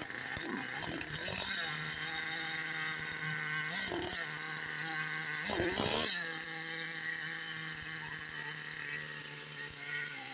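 Traxxas Revo 3.3's small two-stroke nitro engine idling steadily just after a cold start, exhausting through a homemade header made from a brass wind-bell pipe. Its revs rise and fall three times: about half a second in, around four seconds, and most loudly around six seconds.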